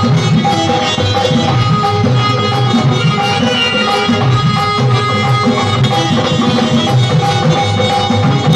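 Instrumental interlude of a live Hindu devotional bhajan: an electronic keyboard plays sustained melody notes over a steady, rhythmic hand-drum beat, with no singing.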